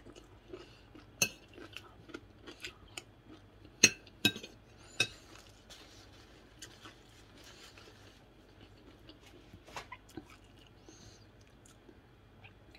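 Metal cutlery clinking against a dinner plate: a scatter of sharp clicks, the loudest about four seconds in, then only a few faint taps.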